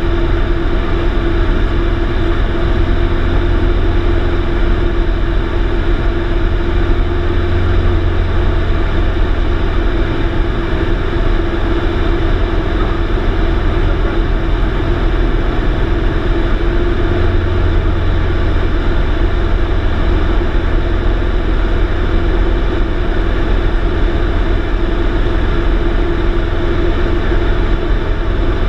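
Light aircraft's engine and propeller running steadily in flight, heard inside the cabin as a loud, even drone with a deep hum and a steady tone.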